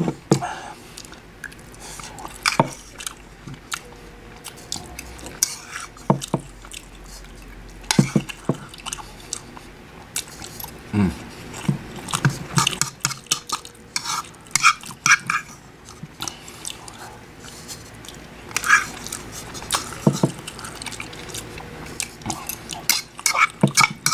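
Metal spoon clinking and scraping against a ceramic bowl while scooping up food, in scattered sharp clicks that bunch together about halfway through and again near the end.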